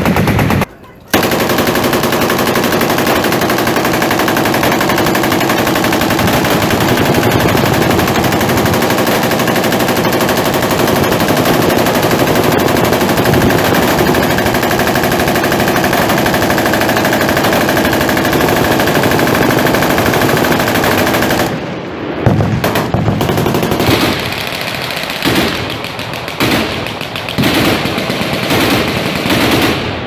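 Many machine guns firing full-auto at once along a firing line, a loud continuous din of overlapping fire. It breaks briefly about a second in, and from about 22 seconds in it turns into separate bursts with short pauses between them.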